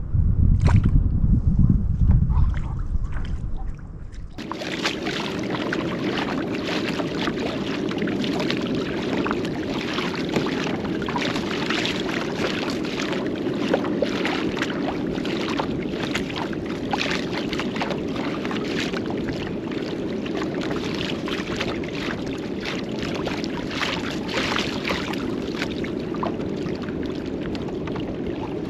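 Low wind rumble on the microphone for about four seconds, then an abrupt change to water sloshing and lapping against a kayak, with many small splashes and crackles.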